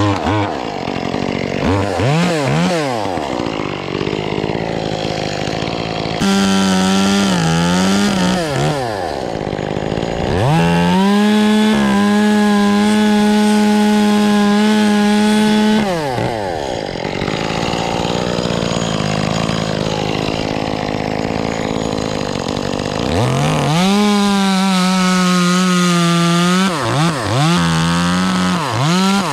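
Two-stroke chainsaw revved in short blips, then held at full throttle for about five seconds. It drops back to a lower, rougher running, is held at full throttle again for about three seconds near the end, and is blipped a few more times.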